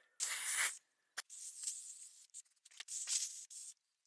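Paint and varnish stripper being sprayed onto an old painted vise in three short hissing bursts, with a sharp click between the first two.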